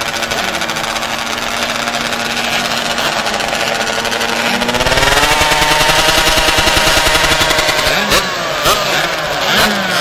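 Several 125 cc two-stroke kart engines running on the starting grid. About halfway one kart revs up and passes close by, louder and rising in pitch, and near the end engines give short quick throttle blips.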